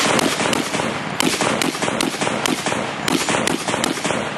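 1874 British Armstrong Gatling gun firing a continuous string of shots, about three a second and unevenly spaced, with the reports echoing between them.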